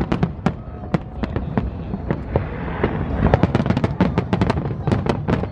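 Fireworks display: a rapid, irregular string of bangs and cracks from bursting shells, thickening into a dense barrage about three seconds in.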